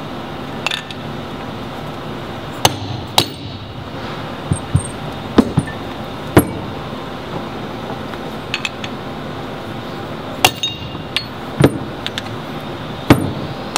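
Soft-faced mallet striking against a bearing to knock it out of a magnetic particle brake's stator: about a dozen irregularly spaced blows, some with a short metallic clink.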